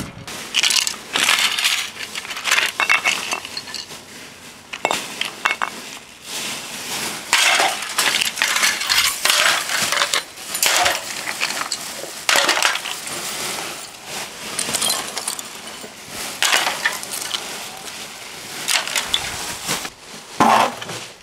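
Irregular clattering and knocking of hard plastic and metal scrap-appliance parts being handled, pulled apart and dropped during dismantling.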